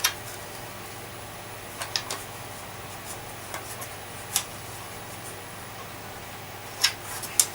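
Hard parts of an old upright vacuum cleaner being handled during cleaning: a handful of separate sharp clicks and knocks a second or two apart, a quick pair near the end, over a faint steady hum.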